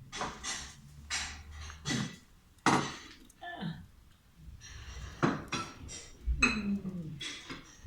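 About a dozen irregular knocks and clinks of hard objects being handled.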